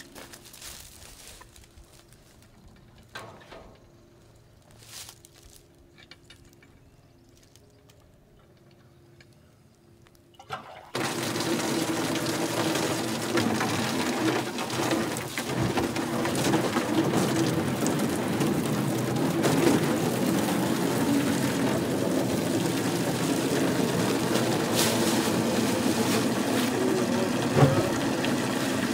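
Garden hose spraying water into a plastic kiddie pool, a steady splashing hiss that starts suddenly about a third of the way in and keeps going. Before it, only a few faint knocks; one sharp knock near the end.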